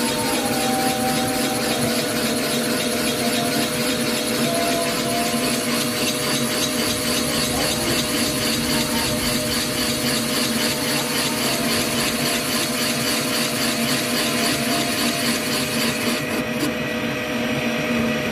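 Motorized boring bar reboring a motorcycle's aluminium crankcase cylinder opening: the motor runs with a steady hum while the cutter shaves metal with a continuous hiss. Near the end the high hiss of the cut drops away while the motor keeps running.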